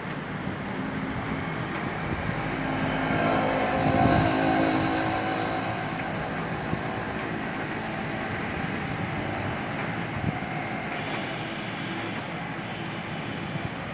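Steady rushing noise of storm wind and rain, swelling louder for a few seconds around four seconds in.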